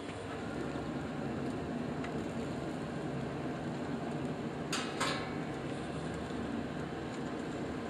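Steady fan-like hum, with two short sharp rustles about five seconds in.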